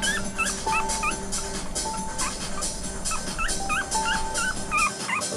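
Young Schipperke puppies whimpering in short, high, rising squeaks, several a second, over background music with held notes and a steady beat.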